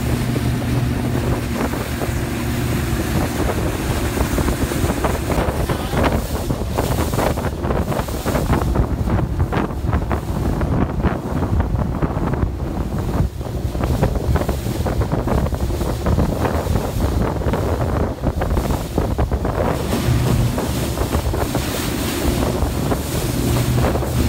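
Inflatable tour speedboat's engine running at speed, a steady low hum, with heavy wind buffeting the microphone and water rushing past the hull. Through the middle the wind and water noise mostly cover the engine, which comes through clearly again near the end as the boat runs into white-water rapids.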